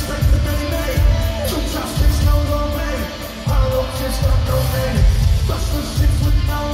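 Loud rap concert music through the PA: a hip-hop beat with heavy, repeated bass hits and sustained pitched parts, and a voice gliding over it at times.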